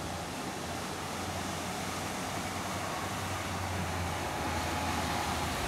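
Semi-truck's engine running low and steady as it drives through floodwater over the road, with a constant rush and splash of water, growing a little louder as the truck comes close.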